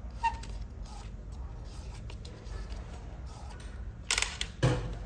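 Small clicks and taps of hand-fitting work on a quartz wall clock as its hands are pressed on and set. Two louder, short handling noises come near the end, over a steady low hum.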